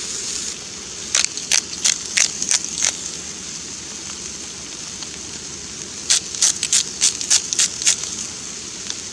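Thick steak sizzling in a frying pan on a gas camping stove, a steady hiss, while a grinder is twisted over it to season the meat in two runs of quick crunching strokes: one about a second in, and another about six seconds in.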